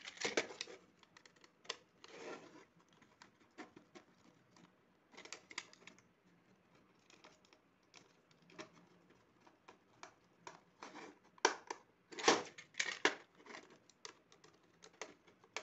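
Small screwdriver turning the screws that fix switches into a white plastic switchboard box, with irregular clicks, taps and scrapes as the box is handled. A cluster of louder clicks comes about twelve seconds in.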